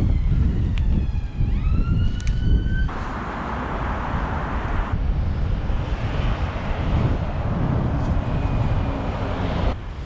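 Strong wind buffeting the microphone with a heavy, rough rumble. In the first three seconds a whining tone slides down in pitch and then back up, and a louder rushing hiss follows for about two seconds.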